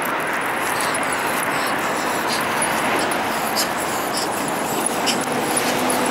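Steady town-centre traffic noise, with faint light ticks of small dogs' claws and lead fittings as they trot on the pavement. A low engine hum comes in near the end.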